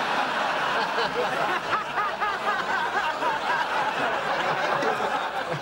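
Sitcom studio audience laughing after a punchline: a steady wash of many people laughing together, dropping off near the end.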